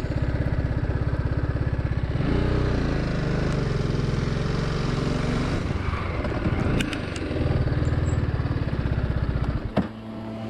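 TVS Apache RR 310's single-cylinder engine running as the bike is ridden in rain. Its pitch rises and falls with the throttle, and it drops away about a second before the end, over a steady hiss.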